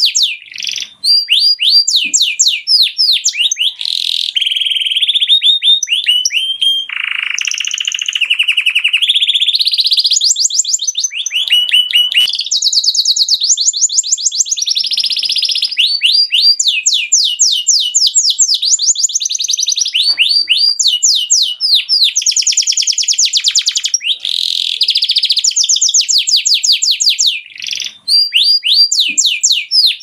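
Male canary singing a long continuous song of fast trills and rolls: runs of rapidly repeated notes that switch pitch every second or two, with a lower, held passage around seven seconds in. The song breaks off briefly about a second in and again near the end.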